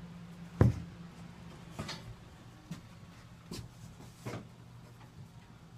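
A series of knocks and taps from handling on the vinyl-tiled counter. The first and loudest comes about half a second in, followed by lighter knocks roughly once a second. Under them runs a steady low hum.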